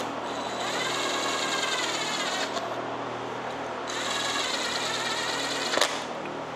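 Cordless DeWalt drill-driver running in two bursts, each spinning up and then slowing as it drives in the small hidden bolts at the front of an Ecotec cylinder head. There is a sharp click near the end of the second burst.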